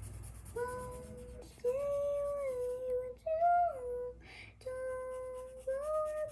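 A girl humming a slow wordless tune in long held notes, stepping up and down between pitches, with a short break about four seconds in.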